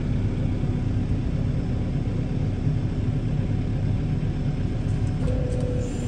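Merlo telehandler's diesel engine running steadily with a low rumble as its boom lifts the attachment; a steady whine joins about five seconds in.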